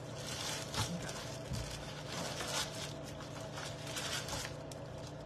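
Plastic bag rustling and crinkling in a run of irregular crackles as it is handled and opened.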